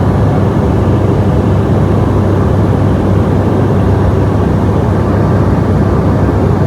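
Turboprop airliner's engines and propellers droning steadily, heard inside the passenger cabin: a deep steady hum under a constant rushing noise.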